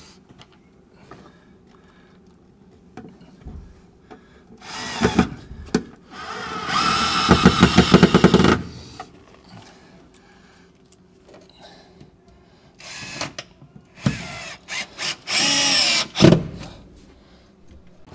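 Bosch cordless drill driver driving screws to fix small steel L brackets to a plywood panel. It runs in a few short bursts, the longest about two seconds near the middle and another near the end, with the motor whine rising as it spins up.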